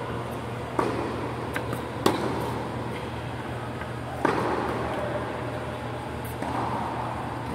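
Tennis ball struck by rackets and bouncing on a hard court during a rally: sharp pops about a second in, about two seconds in and just after four seconds, each with a short echo. A steady low hum of ventilation fans runs underneath.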